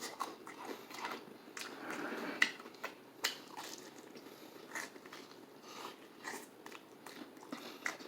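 Close-up chewing and biting of crispy fried chicken, with irregular short crunchy clicks.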